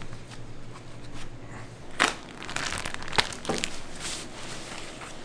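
Crinkling, rustling handling noise with two sharp knocks, about two and three seconds in.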